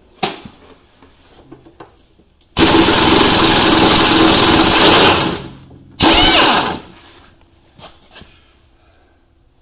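Impact wrench on a socket extension running in two bursts, one of about two and a half seconds and then a short one about a second later, spinning a nut off a bolt holding the drag link support to the frame.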